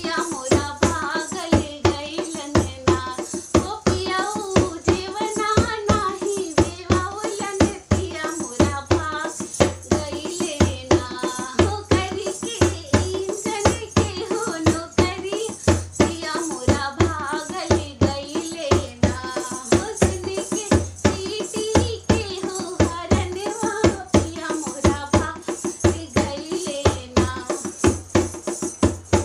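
A woman singing a folk song in a full, continuous melody over a steady beat of drum and tambourine-like jingles.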